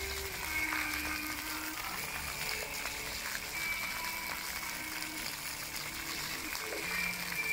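Jets of an illuminated floor fountain splashing onto wet paving, a steady rush of water, with slow music of long held notes playing along.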